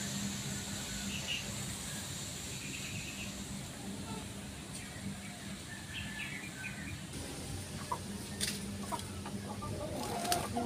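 Faint clucking of chickens with a few short bird calls, over a steady low hum. A few sharp clicks come near the end.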